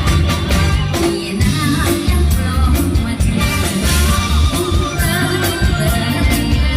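Isan (northeastern Thai) music with singing over a steady, heavy bass beat and percussion.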